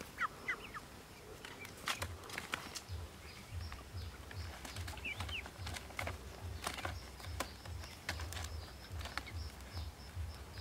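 A white Pekin duck being lifted and handled into a plastic basket: scattered rustles and sharp knocks, with a few short high chirps near the start and about halfway through, over a low uneven thumping.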